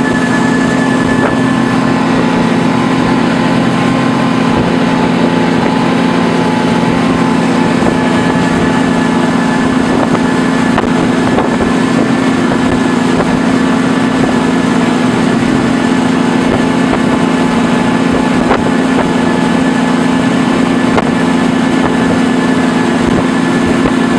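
Small motorboat's engine running steadily at a constant speed, a loud unbroken drone.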